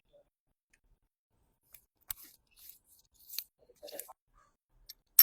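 Small metal watch parts and tools clicking and scraping during reassembly of a Rolex. A few sharp clicks and short scratchy rubs begin about two seconds in, with the loudest click at the very end.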